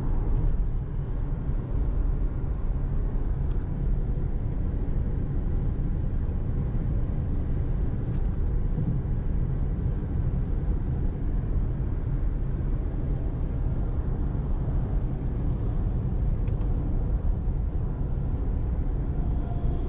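Steady road noise inside a car's cabin cruising at about 110 km/h: an even low rumble of tyres, engine and wind with no change in pace.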